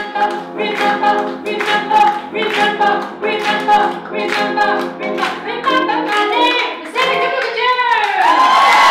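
A woman singing a cabaret song live, with keyboard accompaniment and a steady beat of about two strokes a second. Her line falls away near the end, and she ends on a long held high note as the audience starts to applaud and cheer.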